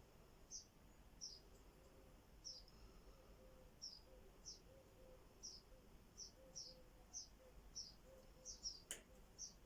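Faint bird chirping: short high chirps repeated steadily, one or two a second. A single sharp click near the end.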